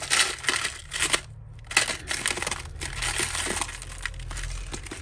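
Costume jewellery clinking and jangling as hands rummage through a clear plastic tub of mixed earrings, chains and beads, with the tub rattling. There is a brief pause about a second and a half in.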